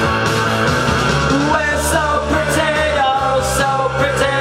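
Punk rock music with a man singing over it; the voice comes in about a second and a half in, over the steady backing.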